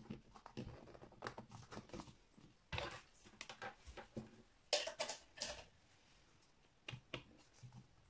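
Plastic shell of a small ultrasonic aroma diffuser being handled: the cover seated on the tank base and the unit and its cable moved about, giving several clusters of light clicks, knocks and rubbing.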